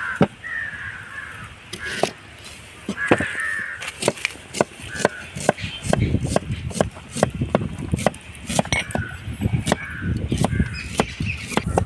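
Crows cawing several times, with many sharp knocks and clicks in between.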